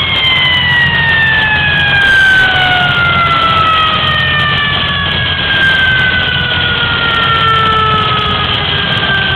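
Fire engine siren winding down, its tone sliding slowly and steadily lower in pitch, over the fire truck's engine and road noise.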